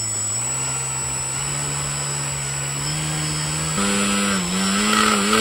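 Small brushless outrunner motor spinning a plastic propeller on a bench test, its throttle raised in steps so the whine climbs in pitch in several jumps. The biggest jump, nearly four seconds in, brings it higher and louder.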